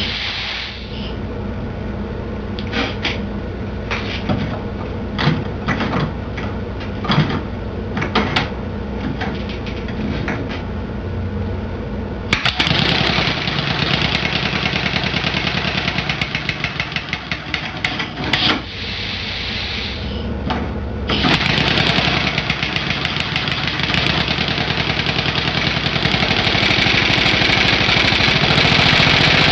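A homemade six-cylinder compressed-air engine with cam-driven double valves: a few scattered clicks, then about twelve seconds in it starts running with a rapid chatter of air exhaust puffing from the small ports on the cylinder sides. It stumbles briefly a few seconds later, then runs on steadily from about twenty seconds in, getting louder toward the end.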